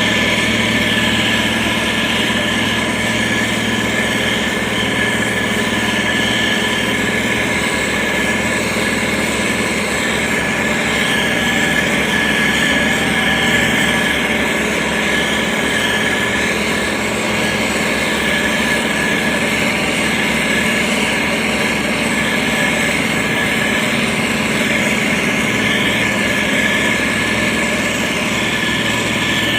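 Heavy road-construction machine's engine running steadily, with a continuous mechanical whine over it.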